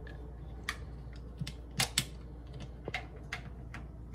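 Glass lid of a Crock-Pot slow cooker being seated and adjusted by hand, with its locking clips: a handful of light, scattered clicks and taps.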